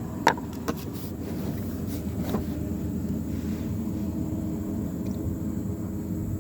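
An engine running steadily, with a few sharp clicks and knocks in the first few seconds.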